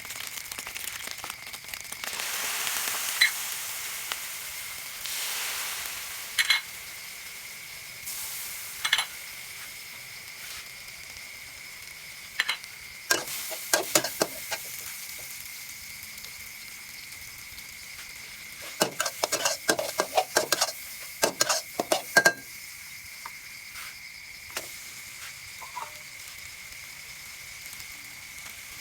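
Glass noodles and egg stir-frying in a hot pan with a steady sizzle, and a spatula striking and scraping the pan in short clusters, busiest around the middle of the stretch.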